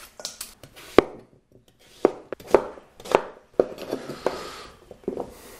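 Kitchen knife dicing a raw swede (rutabaga) on a plastic chopping board: sharp separate knocks as the blade goes through the firm root and hits the board, about one every half second to second, with soft scraping between.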